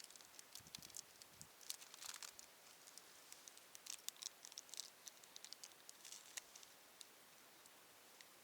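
Small wood fire crackling faintly in an ultralight fire stand: irregular sharp ticks and pops, thickest through the middle.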